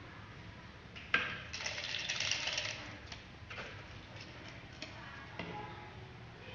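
Rolled paper slips shaken in a clear plastic cup, rattling for about a second and a half after a sharp click, as lots are drawn. A few light clicks and paper rustles follow as a slip is taken out and unrolled.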